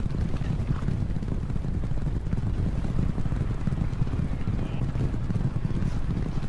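A field of racehorses galloping together, their hooves drumming in a dense, steady low rumble.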